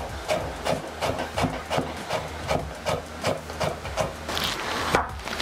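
Kitchen knife cutting beetroot into julienne strips on a cutting board, a quick, even run of cuts at about three a second.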